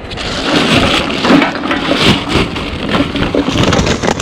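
Hands rummaging through a plastic trash bag: continuous crinkling and rustling of plastic with many small clinks and rattles of cans and rubbish inside.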